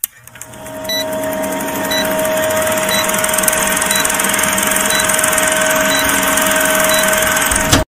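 Old-film countdown sound effect: a film projector running with a steady whir and hum, a short tick about once a second. It builds up over the first second and cuts off suddenly near the end.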